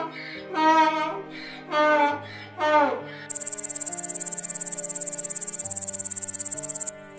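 A donkey braying in three loud swells, then from about three seconds in a katydid's fast-pulsing, high-pitched buzz that breaks off briefly near the end. Background music with held notes runs underneath.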